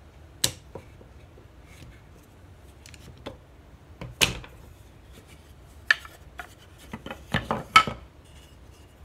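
Scattered clicks and wooden knocks as a quick-release bar clamp is released and laid down, and the mitred wooden frame pieces and jig arms are taken apart on a plywood bench. The sharpest knock comes about four seconds in, and a quick run of clatter follows near the end.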